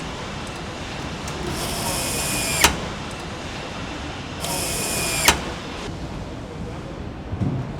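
A power tool runs twice with a high whir, each run lasting about a second, and each ends in a sharp click. A steady factory hum runs underneath.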